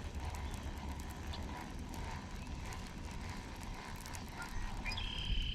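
Spinning reel being cranked to retrieve a crankbait, with faint ticking over a steady low rumble of wind and handling on the microphone. A short high tone sounds near the end.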